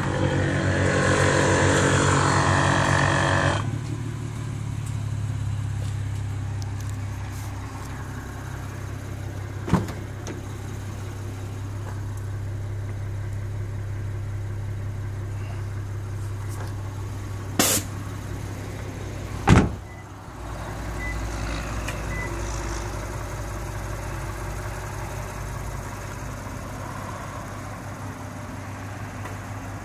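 A steady low mechanical hum from the air-suspended Lexus RC350, louder and noisier for the first few seconds. Three sharp clicks come around ten, eighteen and nineteen seconds in, and a deeper rumble joins after about twenty seconds.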